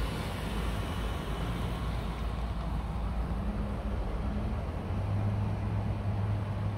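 Low engine rumble of road vehicles heard from inside a car, with a steady low hum that grows stronger about five seconds in.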